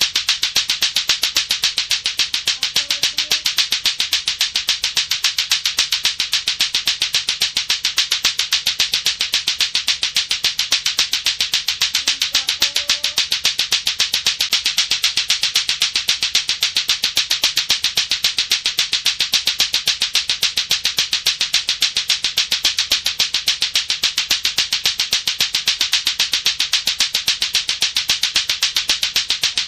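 Latto-latto clacker toy: two hard balls on a string clacking against each other in a fast, even rhythm, without a break.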